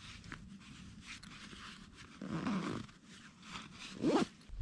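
A backpack zipper being pulled shut in two strokes, a longer one around the middle and a short one near the end, with faint rustling of the pack's fabric in between.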